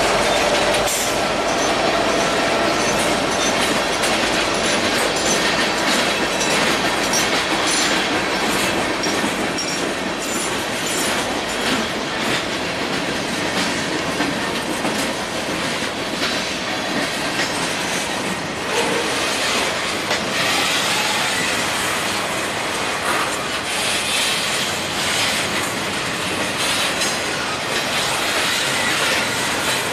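Freight cars of a long mixed train (tank cars, hoppers and boxcars) rolling past: a steady rumble of steel wheels on rail, with repeated clicks over the rail joints and brief high wheel squeals.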